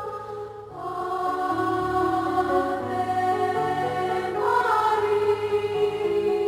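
Choir singing a slow hymn in long held chords, with a brief breath between phrases about half a second in.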